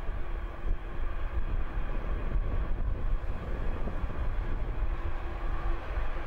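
Antonov An-225's six turbofan engines running as the giant jet rolls along the runway: a steady deep rumble with a faint steady hum over it.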